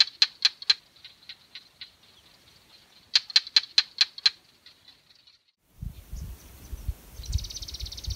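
Barking geckos calling at night: two bouts of sharp clicking chirps, about five a second. About six seconds in this gives way to low rumbling thumps and a fast, high buzzing trill.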